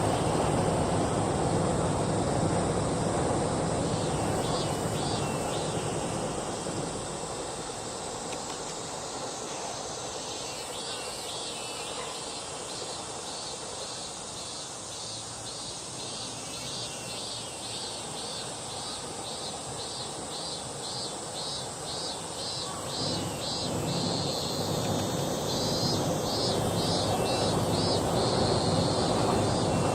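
An insect chirping in an even, high-pitched rhythm of about two pulses a second, growing clearer from about ten seconds in. Under it is a distant rumble of traffic or aircraft that eases off and builds again near the end.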